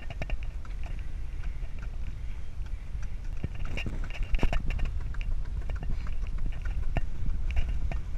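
Wind rumble on the microphone of a camera mounted on a moving bicycle's handlebars, with scattered clicks and rattles from the ride, busiest around the middle.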